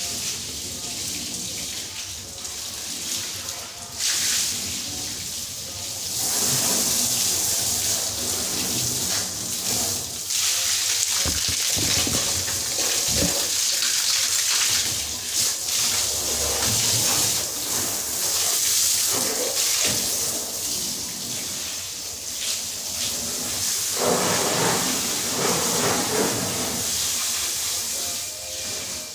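Water from a garden hose spraying onto a car's body and splashing onto the wet tiled floor, a steady hiss that gets louder a few seconds in.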